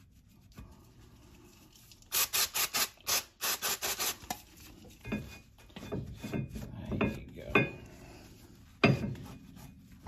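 A cloth rag rubbing and wiping a brake caliper and its bracket clean: a couple of seconds of brisk back-and-forth strokes, about five a second, then slower scrubbing, with a single knock near the end.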